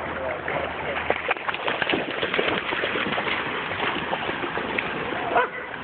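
Water splashing and sloshing in shallow water as a dog wades and splashes through it, a rapid, uneven patter of small splashes, with a brief louder sound about five seconds in.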